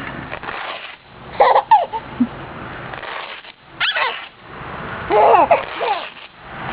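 Baby laughing in several short, squealing bursts.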